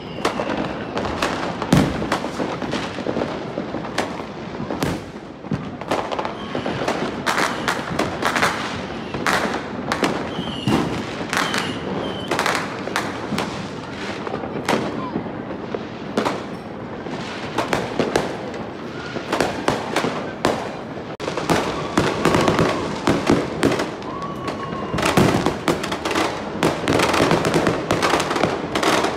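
Many fireworks going off at once: a continuous barrage of bangs and crackling pops, with whistles gliding in pitch here and there.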